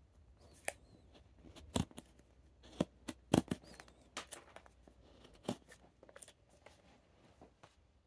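Carving knife slicing shavings off the stem of a wooden goblet: a run of short, crisp cuts at uneven intervals, the loudest about two, three and a half and five and a half seconds in.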